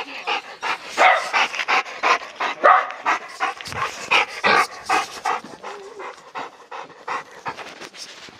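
Labrador retriever panting rapidly and heavily, a quick run of short breaths close to the microphone.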